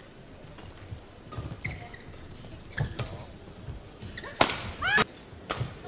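Badminton rally: rackets striking the shuttlecock in a run of sharp cracks, the loudest a little over four seconds in, with players' shoes squeaking on the court mat.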